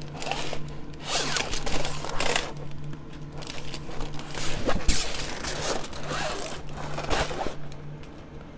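Clear plastic protective film on a diamond painting canvas crinkling and rustling as the canvas is bent and moved, in irregular swishes, over a steady low hum.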